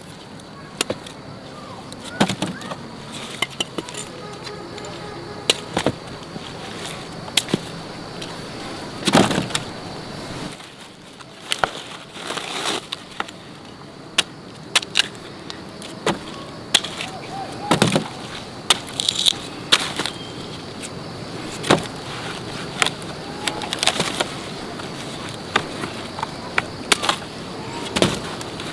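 Irregular sharp knocks and thuds, sometimes several in quick succession, over a steady high-pitched hum.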